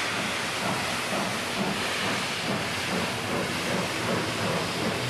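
Large steam locomotive hissing steadily as steam blows out from its cylinders.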